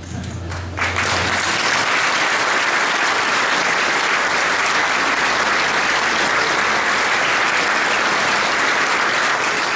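Audience applauding, the clapping starting about a second in and holding steady.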